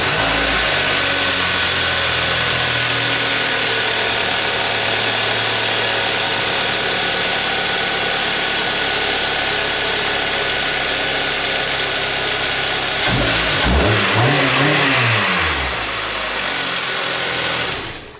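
2013 Kia Optima's 2.4-litre four-cylinder engine idling steadily just after an oil change with fresh 5W-20 full synthetic. About thirteen seconds in it is revved once, rising and falling in pitch, then settles back before the sound cuts off near the end.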